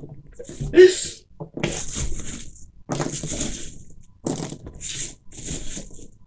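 Hands rummaging through polystyrene packing peanuts in a cardboard box: a string of short, irregular hissy rustles as the foam pieces are pushed about. About a second in there is a brief voice-like sound, the loudest moment.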